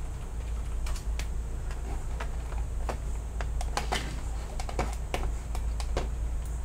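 Computer keyboard being typed on: irregular key clicks, a few at a time with short pauses, over a steady low hum.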